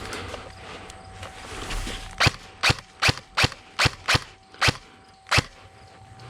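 Airsoft gun firing eight sharp single shots in quick, uneven succession, starting about two seconds in.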